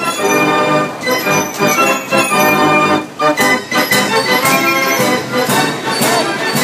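Carousel fairground organ music playing a tune with a steady beat.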